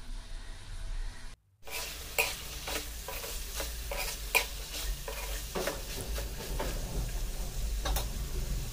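A spatula stirring boiled black chickpeas in spiced masala in a metal kadai, with repeated scrapes and taps against the pan over a steady sizzle. The stirring starts about a second and a half in, after a brief drop-out.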